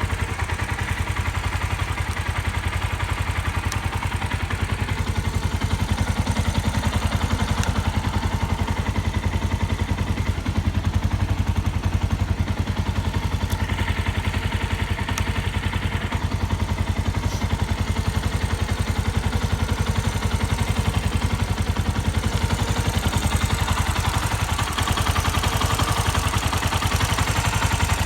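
Suzuki Grasstracker Big Boy's air-cooled single-cylinder four-stroke engine running steadily with an even beat. It runs without abnormal engine noise.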